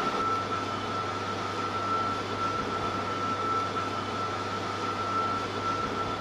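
Steady rushing of wind and sea with the hum of ship machinery, recorded aboard a warship under way, with a constant high-pitched whine over it.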